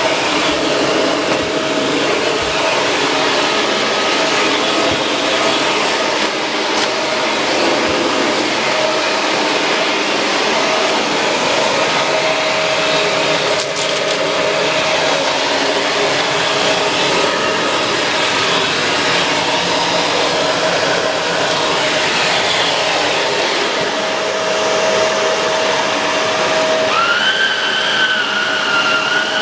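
Shark Rotator Pro Lift-Away NV500 vacuum cleaner running steadily, a dense rushing noise with a wavering motor whine. Near the end a higher whine comes in and rises slightly.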